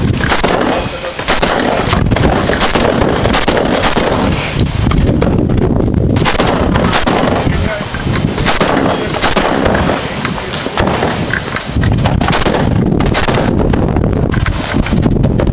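A string of rifle shots, sharp reports at irregular spacing of about half a second to a second apart, with short pauses between groups, over steady outdoor noise.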